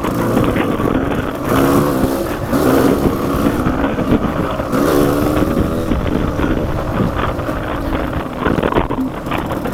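Motorcycle engine running under way, its pitch rising and falling as the throttle changes, with wind noise on the microphone.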